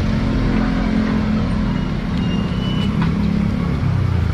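A motor vehicle engine running steadily at idle, an even low hum with no revving.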